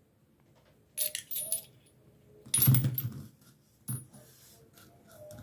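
Small metal air-compressor hose fittings clinking and clattering against each other as they are handled, in a few separate bursts of clinks.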